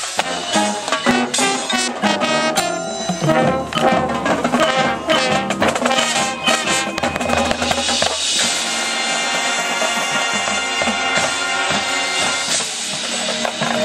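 Marching band's brass and percussion playing loudly: busy rhythmic drum hits under moving brass lines, then about eight seconds in the brass settles into a long held chord, with percussion hits coming back in near the end.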